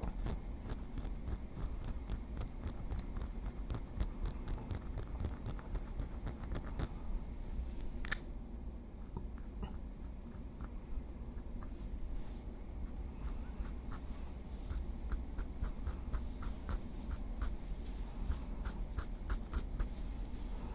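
Small wooden stick tapping lightly in quick runs of crisp clicks. The runs thin out after one sharper tap about eight seconds in, then pick up again a few seconds later, over a steady low hum.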